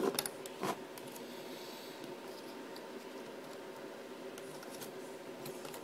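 Faint handling of a plastic zip tie being threaded through the holes of a servo arm: a few clicks and scrapes in the first second, then soft rubbing, over a steady faint hum.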